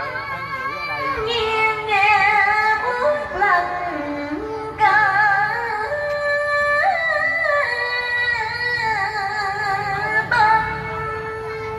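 A woman singing a slow, ornamented cải lương line with long held, wavering notes that slide from pitch to pitch, over music.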